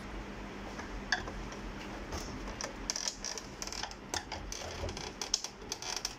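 Irregular light clicks and taps of hard plastic parts being handled on a partly disassembled HP Scanjet Enterprise 7500 scanner, sparse at first and coming thicker from about two seconds in.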